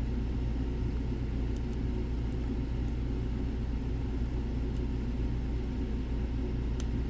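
A steady low rumble runs throughout, and a handful of faint, sharp ticks fall now and then, typical of a lock pick working the pins of a padlock.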